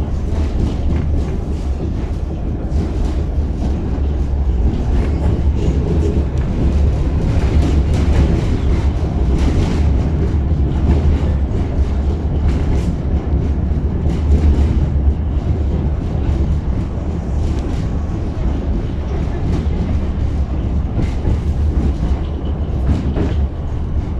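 Tatra T6B5 tram running between stops, heard from aboard: a steady low rumble with irregular clicks and clatter of the wheels on the rails.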